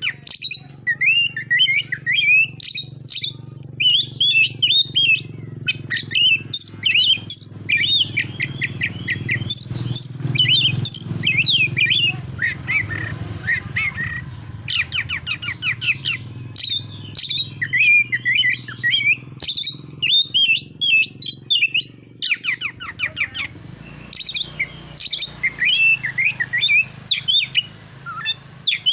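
Oriental magpie-robin (kacer) singing a fast, varied song of whistled phrases, trills and runs of sharp rapid notes, with a steady low hum underneath.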